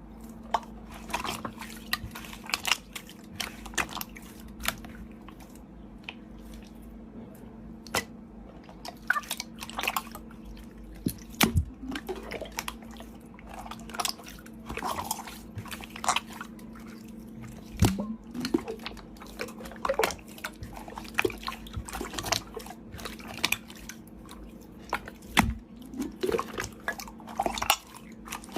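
Slime being squished and kneaded, making irregular wet clicks, pops and crackles, with a faint steady hum underneath.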